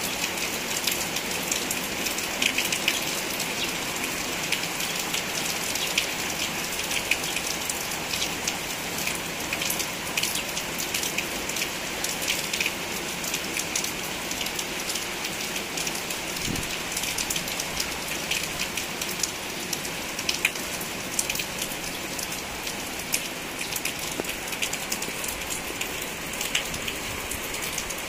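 Steady rain falling on broad banana leaves: a constant hiss with a dense scatter of individual drop hits.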